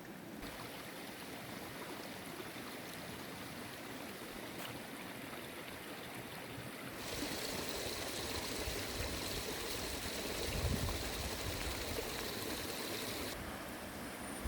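Steady rushing of running water, as from a forest stream. About seven seconds in the sound turns brighter and hissier, with a faint steady high tone, and a low rumble swells briefly near the ten-second mark; the brighter sound drops away shortly before the end.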